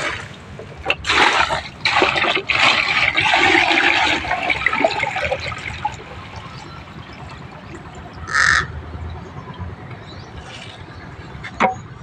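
Water poured from a plastic bucket into a plastic basin, splashing for about five seconds as the basin fills. A short crow caw follows about eight and a half seconds in.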